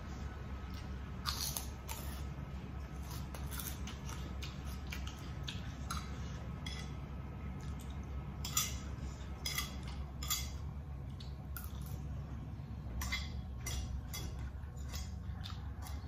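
Metal spoon scraping and clinking against a ceramic plate while someone eats, in irregular light clicks with a few louder clinks.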